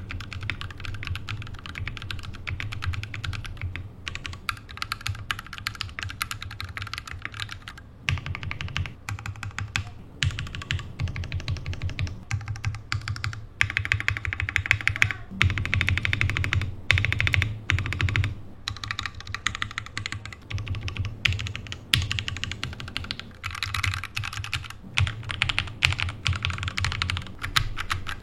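Typing test on a Daxa M61 60% mechanical keyboard fitted with an FR4 switch plate: fast, continuous keystrokes, each a click with a deep low thud, broken by a few short pauses.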